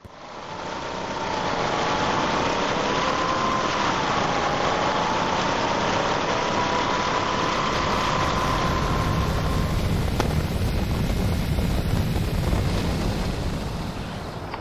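Motorcycle under way at highway speed: a steady engine drone buried in heavy wind rush, with a faint engine whine that drifts slightly up and down in pitch. It fades in at the start and eases off a little near the end.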